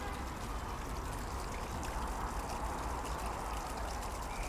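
Small stream's water running and trickling steadily.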